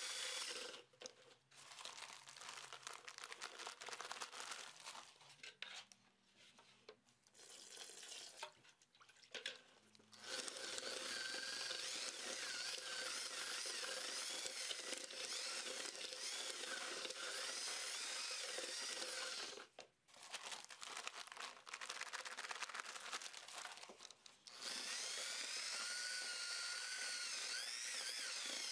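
Electric drill with a paddle mixer running at low speed, stirring thinset mortar in a plastic bucket. It whirs steadily and stops or slows several times before running again.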